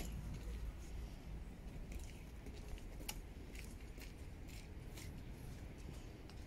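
Faint low background rumble with scattered light clicks and ticks, about one every half second to a second.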